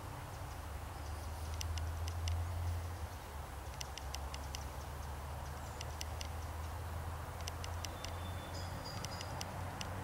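Outdoor woodland ambience: a steady low rumble with small clusters of sharp, high ticks every second or two, and a brief high whistled note near the end.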